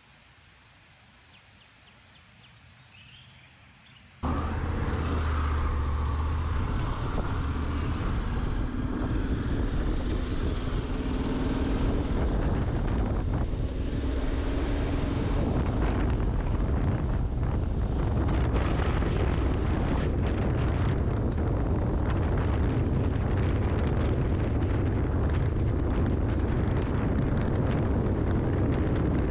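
Honda X-ADV 750 motorcycle being ridden at highway speed: a steady, heavy rush of wind with the engine's drone underneath. It is faint for the first four seconds, then comes in loud suddenly about four seconds in.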